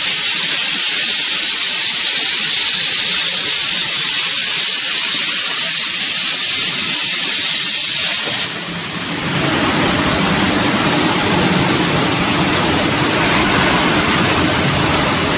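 Plasma cutting torch hissing steadily as it cuts metal sheet. A little over halfway through the sound dips briefly, then goes on as a rougher, fuller noise with more low rumble.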